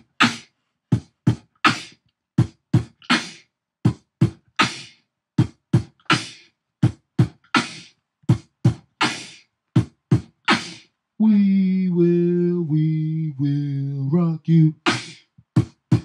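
Beatboxing into a handheld microphone: a repeating 'B, B, K' pattern of two bass-drum kicks and a snare, one group about every second and a half. About eleven seconds in, a hummed vocal tune of a few held notes plays over the beat for several seconds, then the kick-kick-snare pattern returns.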